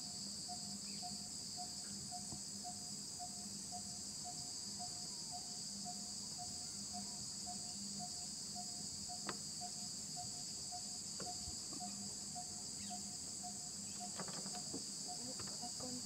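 Steady high-pitched chorus of insects, with a faint low note repeating about three times a second beneath it and one sharp click about nine seconds in.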